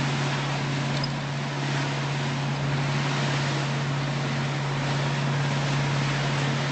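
A motorboat's engine drones at a steady pitch, under a constant rush of wind and water noise as the boat runs through rough waves.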